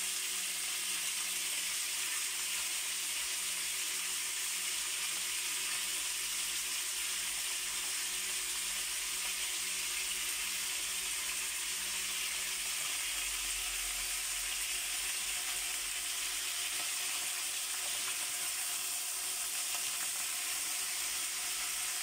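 Chicken pieces frying in oil in a wok, giving a steady sizzle.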